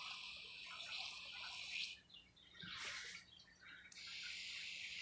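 Watering wand spraying a light stream of water onto potting soil, a faint steady hiss. The spray cuts off about two seconds in, gives a short spurt, and starts again about a second later.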